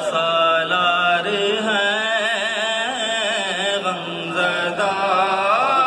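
A man singing a noha, a Shia mourning lament, into a microphone, in a sustained wavering melody that slides between notes.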